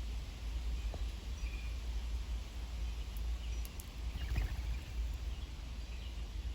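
A few faint, short bird chirps over a steady low outdoor rumble, with a couple of brief clicks about three to four seconds in.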